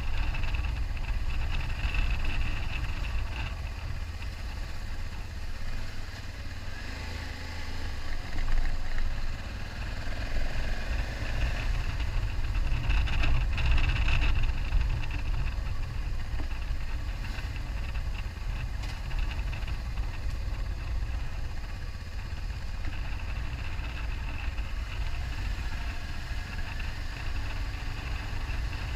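BMW F650GS Dakar's single-cylinder engine running on the move, under heavy wind rumble on the bike-mounted microphone. The engine note rises and falls through the middle of the stretch.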